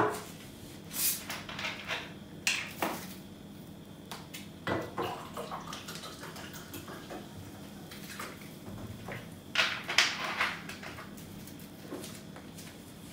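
A glass and a plastic bottle of orange soda handled on a kitchen counter: a few sharp knocks and clinks scattered through, the loudest about ten seconds in, with soda being poured into the glass.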